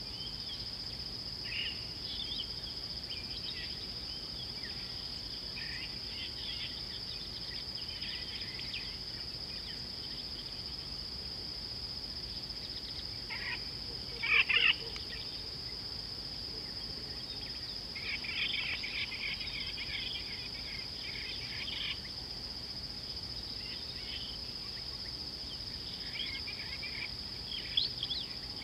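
A steady high-pitched insect drone, with birds chirping on and off. A short, louder burst of bird calls comes about halfway through, and a busier spell of chirping a few seconds later.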